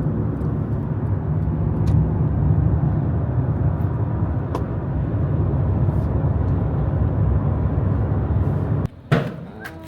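Car on the road: a steady low rumble of engine and tyres that cuts off abruptly near the end, followed by a sharp knock.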